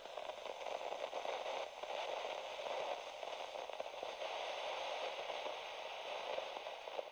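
Steady, fairly quiet crackling static: a hiss peppered with fine pops and clicks, with no music or speech in it.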